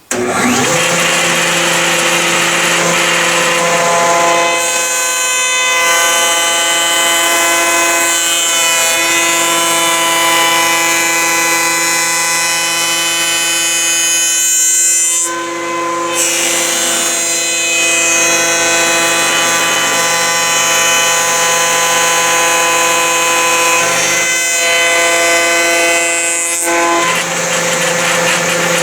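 A woodworking power tool running steadily with a strong, even hum, used to cut wooden beehive frame side bars. It briefly changes about halfway through and again near the end, as stock is fed through.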